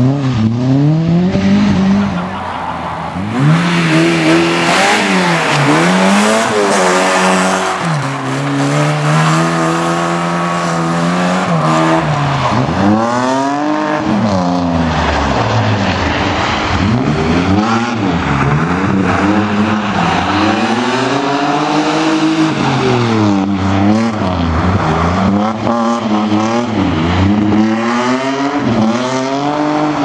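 Rally cars' petrol engines, a Lada saloon among them, revved hard through corners, the pitch climbing and dropping again and again as the drivers lift off and shift gear. Tyres scrabble on loose dirt underneath.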